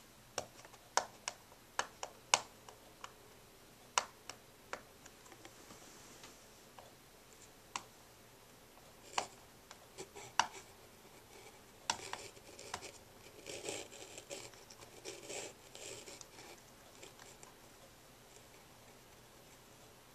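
Fingernails picking at and peeling stickers off a laptop's plastic palm rest: a scatter of sharp clicks and ticks, then a few seconds of scratching and rubbing about twelve seconds in.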